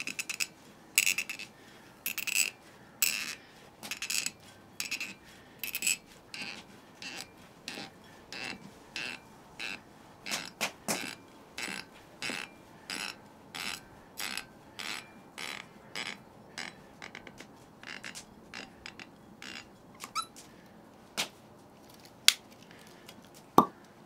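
Wine cork squeaking against the glass neck as it is twisted out of the bottle with the large blade of a Victorinox pocket knife: a long run of short squeaks, one to two a second, growing sparser, with a few sharper clicks near the end.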